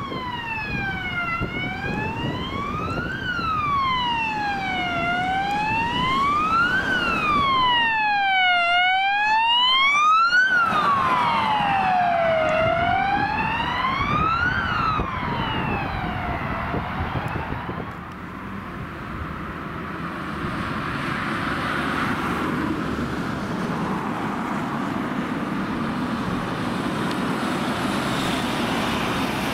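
Electronic wail siren of an emergency rapid-response (MUG) car, rising and falling slowly about once every four seconds, loudest about ten seconds in and fading away after about seventeen seconds. After that there is steady vehicle engine and road noise.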